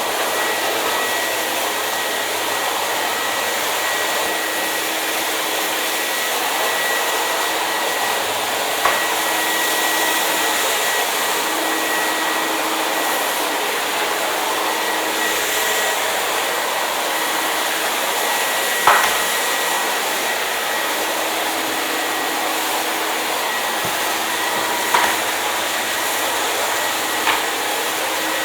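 Hair dryer running steadily: an even rush of blown air with a constant motor whine. A few faint clicks come through along the way.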